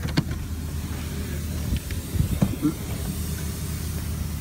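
Low steady rumble of a vehicle engine idling, with a few knocks and clunks as someone climbs out of the car, about a fifth of a second in and again around two seconds in.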